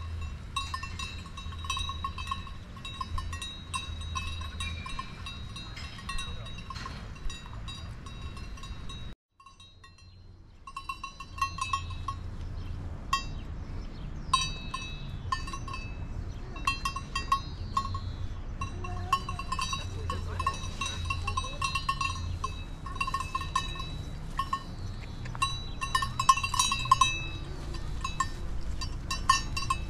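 Bells worn by a small herd of grazing Valais blackneck goats, clinking and ringing irregularly as the goats move and feed. The ringing drops out for about two seconds about nine seconds in, then carries on, growing denser near the end.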